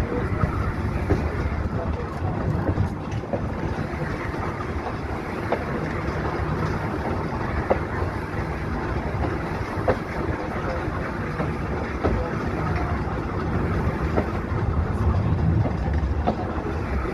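Volk's Electric Railway electric car running along its track: a steady rumble of wheels on rail, with short, sharp clicks every couple of seconds.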